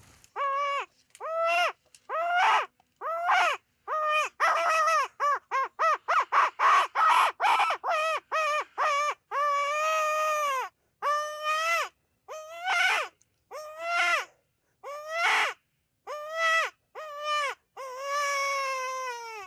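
Predator call sounding coyote yips and howls: a quick series of short yelping notes that rise and fall in pitch, broken by a long drawn-out howl about halfway through and another near the end. It is calling to draw in the partner of a coyote that has just been shot.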